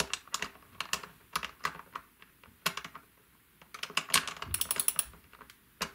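Small ratchet wrench clicking as it tightens the hex nuts of locking guitar tuners. The clicks come in short runs, with a pause in the middle and a quicker run after about four seconds.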